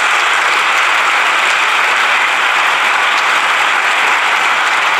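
Audience applauding: steady, dense clapping that holds at an even level throughout.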